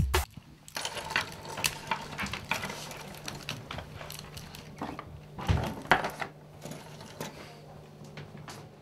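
Light clicks and clinks of small hard objects being handled, scattered irregularly over a low steady hum, with a louder knock about five and a half seconds in.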